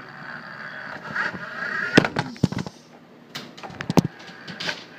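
Toy RC truck's small electric motor whining steadily while the truck knocks and bangs into things several times, the loudest knocks about two and four seconds in.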